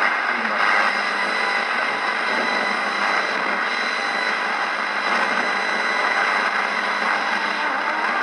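Steady static hiss from an FM radio's small speaker, with no station tuned in.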